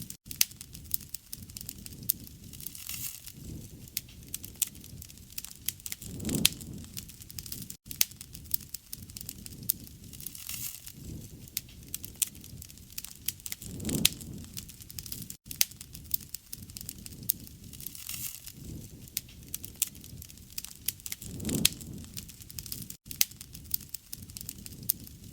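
Wood fire burning, with a steady crackle of sharp pops and snaps and a low rush of flame that swells about every eight seconds as the recording loops.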